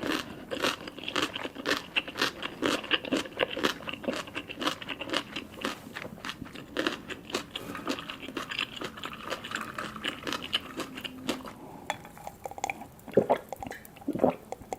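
A person chewing and biting food in quick, clicking chews that thin out to a few separate bites after about twelve seconds.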